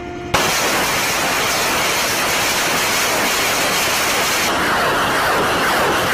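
Loud, steady rushing hiss that starts abruptly about a third of a second in, its upper part thinning a little about four and a half seconds in.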